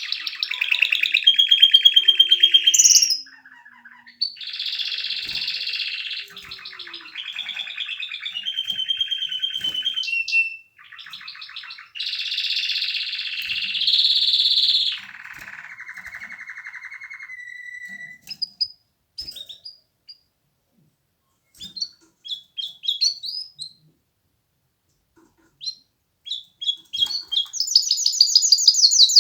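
Domestic canary singing a long song of rapid trills, each phrase a run of quickly repeated notes at its own pitch. About two-thirds of the way through the trilling stops and only scattered short chirps are heard. Near the end a fast, high trill starts.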